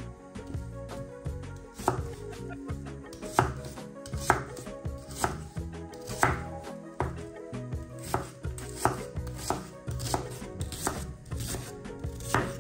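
Kitchen knife slicing and dicing a peeled onion on a wooden cutting board: a crisp cut through the onion ending in a knock of the blade on the board, about one to two strokes a second.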